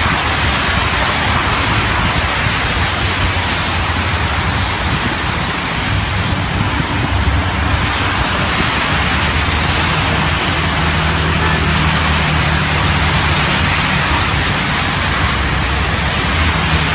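Steady loud rush of water, floodwater pouring down a stepped concrete channel mixed with rain and tyres hissing on the wet road, with the hum of passing cars rising and fading now and then.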